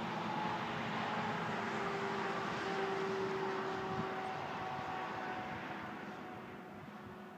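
A steady, distant engine drone with faint humming tones that drift slowly lower, fading away over the last couple of seconds.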